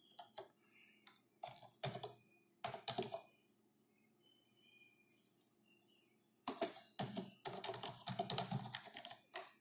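Typing on a computer keyboard: scattered keystrokes for about three seconds, a pause of a few seconds, then a quick run of keystrokes near the end.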